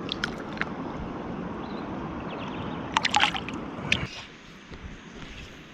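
Water sloshing and splashing at the side of a kayak, with a short burst of sharp splashes about three seconds in; the steady water noise drops away about a second later.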